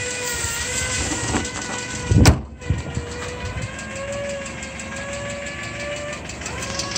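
Petrol engine of a 2007 Kia Pride idling steadily, with a sustained whining tone that wavers slightly in pitch. A single heavy thump comes about two seconds in.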